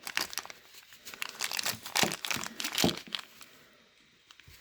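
Packaging crinkling and rustling as it is handled and unwrapped, in a dense run of small crackles that dies away about three and a half seconds in.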